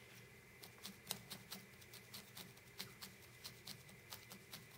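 Felting needles in a multi-needle holder stabbing repeatedly through wool into the work pad: a faint, irregular run of crisp pokes, several a second, starting about half a second in.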